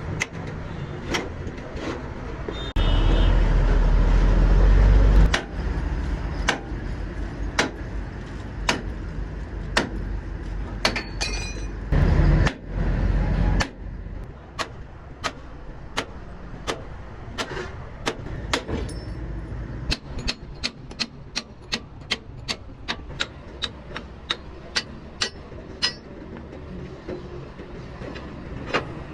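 Repeated sharp hammer blows, about one a second, quickening to about two a second later on, with a heavy vehicle rumbling by twice.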